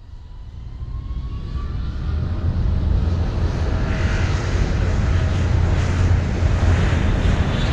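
A large engine running with a deep rumble and a faint rising whine, growing louder over the first two or three seconds, then holding steady.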